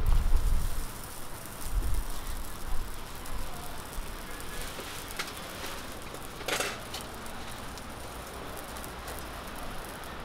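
Millet pancakes frying in oil on a flat griddle, a steady sizzle. Low rumbling thumps in the first two seconds, and a short sharp noise about six and a half seconds in.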